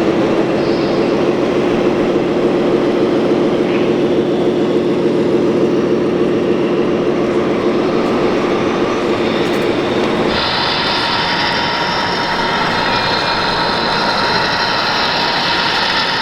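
Electric motors and hydraulic pump of scale RC construction machines running with a steady whine. About ten seconds in, the sound changes abruptly to a higher, brighter whine.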